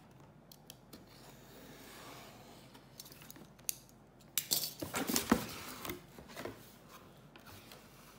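Cardboard mailer box being handled and opened on a table: a few light clicks and a soft rustle, then a burst of scraping, clicking and crackling as the lid comes free and the packing inside is touched, loudest just past the middle.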